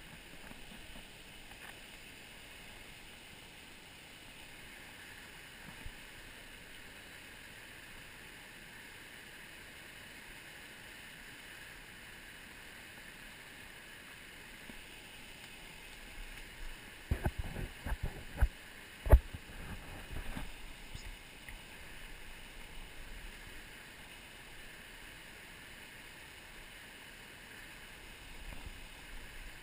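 Small mountain stream rushing steadily over rocks. A little past halfway comes a cluster of knocks and rustling bumps, the loudest about two thirds of the way in.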